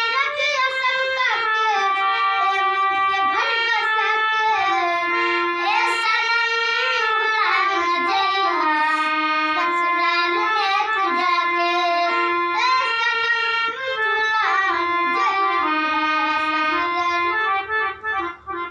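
A child singing a Bhojpuri jhareliya folk song to held chords on a harmonium; the music breaks up and fades near the end.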